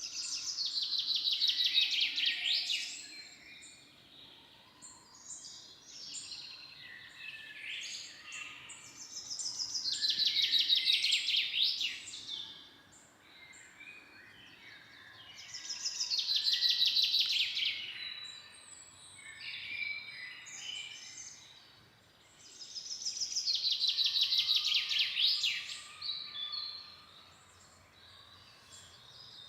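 A songbird singing a rapid trilled phrase that falls in pitch, repeated four times about every seven seconds, with softer calls from other birds in between over a faint background hiss.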